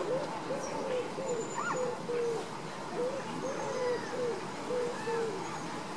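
Caribbean flamingo flock calling: a continuous chatter of short, overlapping low honks, about two a second, with a few higher calls mixed in.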